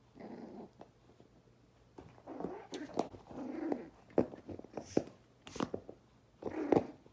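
A small puppy's short, rough play-growls and snuffles in three spells while it mouths and noses its toys. A few sharp clicks fall between them.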